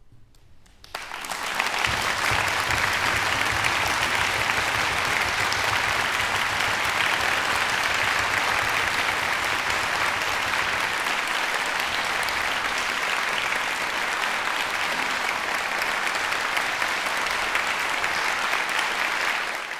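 Concert audience applauding: the clapping breaks out about a second in and holds steady, fading near the end.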